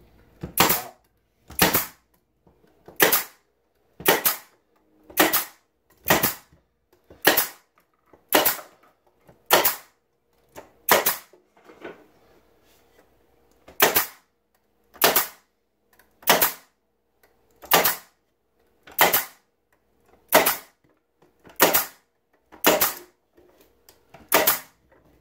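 Pneumatic nail gun firing nails into the wooden parts of beehive frames, about nineteen sharp shots at roughly one a second, with a pause of a few seconds about halfway.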